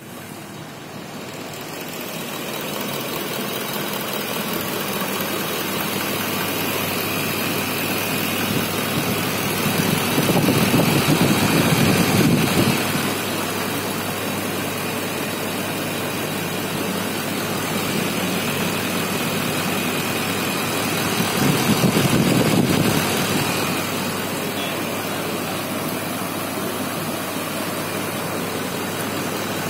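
Toyota Landcruiser 200's 1VD-FTV twin-turbo V8 diesel running steadily, growing louder twice for a couple of seconds at a time.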